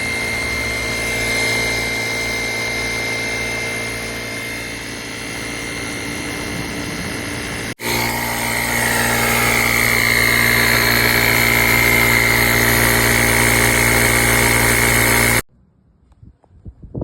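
Small electric air compressor built into a portable jump starter, running steadily with a high whine. It cuts off abruptly about eight seconds in, then runs again a little louder until near the end.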